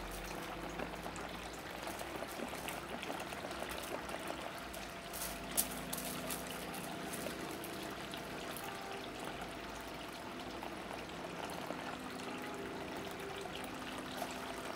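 Garden ball fountain trickling steadily, water running over the sphere and spilling into the pot and small bowl below.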